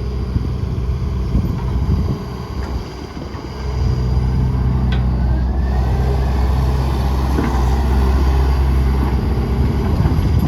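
John Deere 160D LC excavator's 4.5-litre diesel engine running, getting louder about four seconds in and then holding steady.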